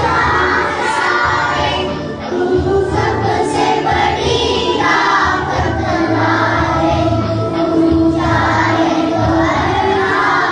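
A group of schoolgirls singing together in chorus.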